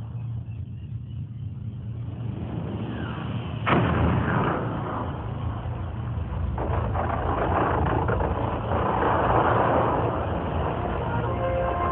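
Fireworks bursting over a steady low rumble: one sharp bang about four seconds in, then dense crackling from about halfway on.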